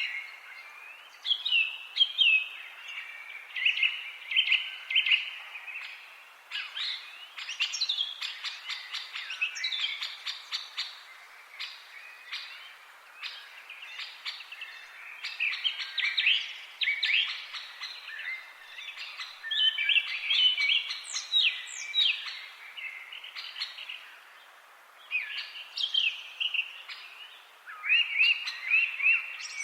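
Several songbirds singing in overlapping phrases of chirps and short trills, with brief pauses between bursts, over faint outdoor background noise.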